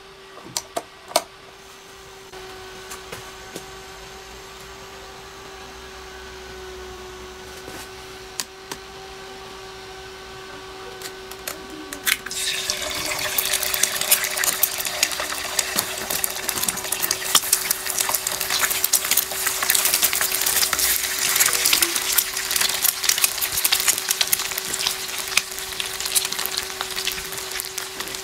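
A few clicks as the homemade induction heater is switched on, then a steady hum from the running circuit and its cooling fan. About twelve seconds in, an egg goes into the hot oil in the pan and sizzles and crackles loudly, frying steadily until the end.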